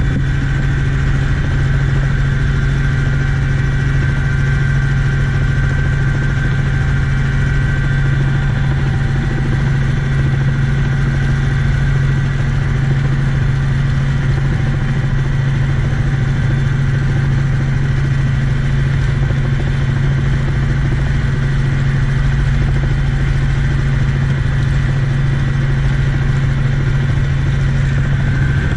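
Helicopter engine and rotors heard from inside the cabin: a loud, steady drone with a strong low hum that does not change.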